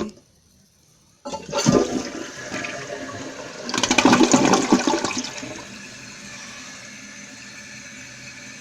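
Toilet flushing: starts suddenly about a second in, the rush of water swelling to its loudest around four seconds in, then falling to a steady, lower rush of water as the tank refills.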